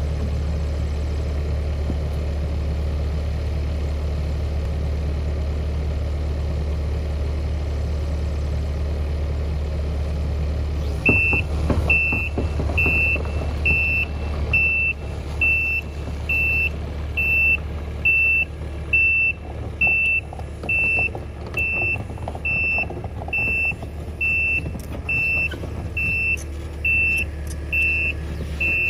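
Takeuchi TB290 excavator's diesel engine running steadily. About eleven seconds in it starts working: louder, with knocks, and its motion alarm beeps over and over, a little faster than once a second.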